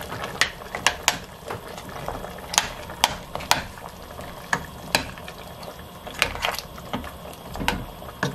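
Metal spoon stirring seasoning into a stainless steel stockpot of simmering beef short ribs, clinking irregularly against the pot about once or twice a second over a low bubbling simmer.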